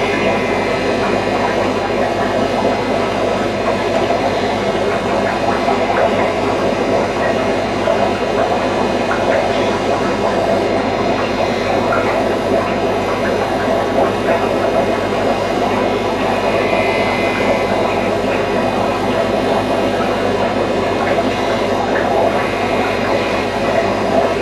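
Steady machine hum with a rushing noise, unchanging in level, with a few faint ticks.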